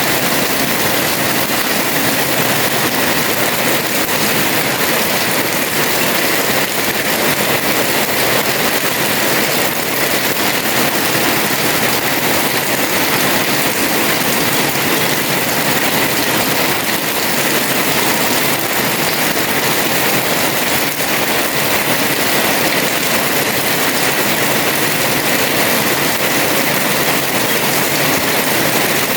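Heavy rain pouring steadily onto a house terrace, a dense, even hiss with no let-up.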